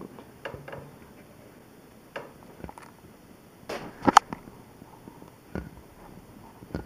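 Scattered light clicks and knocks as insulated copper wire is pushed through a hole in a wooden board past a screwed-on razor blade, with a louder cluster of knocks about four seconds in.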